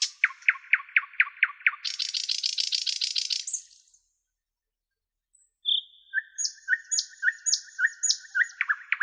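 Songbird singing: a quick run of about eight descending whistled notes, then a fast buzzy trill. The song cuts off to dead silence for about a second and a half, then starts again with a series of repeated notes.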